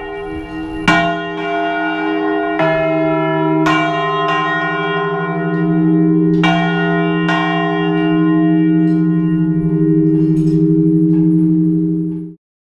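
Large church bell swinging a volteo, its clapper striking roughly every second or so with a long humming ring between strokes. The strokes grow fainter over the last few seconds while the hum keeps sounding, and then the sound cuts off suddenly near the end.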